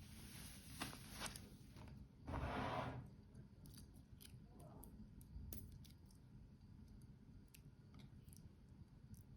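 Hands handling a wristwatch and its packaging: a soft rustle, a louder brief scrape or rustle about two and a half seconds in, then scattered light clicks and taps.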